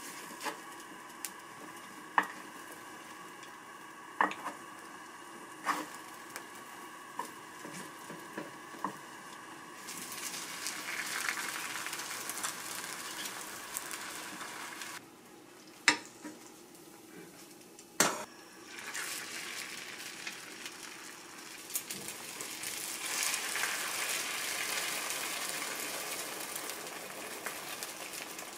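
Food sizzling as it fries in a pan, with light clicks and taps of cooking utensils. Only the clicks are heard at first; the sizzling starts about a third of the way in, breaks off briefly around the middle with two sharp knocks, then resumes, loudest near the end.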